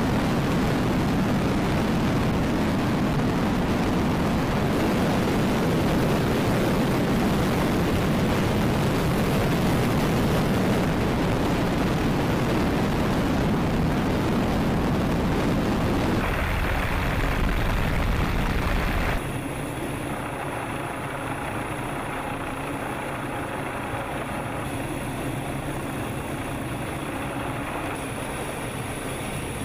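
Helicopter engine and rotor noise heard from aboard, a loud, steady rush. About sixteen seconds in the sound changes, and about three seconds later it drops to a quieter steady hum.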